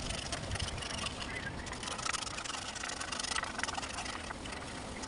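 Hand tool scraping and picking old cane and its spline out of the groove of a wooden chair-seat frame: a run of small irregular clicks and scratches over a steady low rumble.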